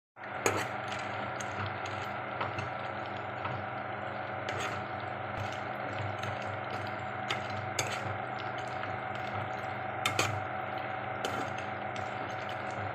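A metal spatula stirs and scrapes dry-roasting cashews and almonds around a kadai. The nuts clatter and the spatula clinks sharply against the pan now and then, over a steady hum.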